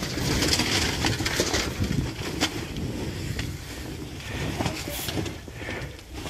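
Barn fire burning, with scattered sharp crackles and pops over a steady low rumble and hiss on the phone microphone.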